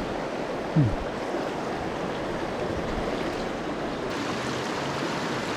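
Mountain river water rushing steadily over rocks, with a brief low falling voice sound about a second in.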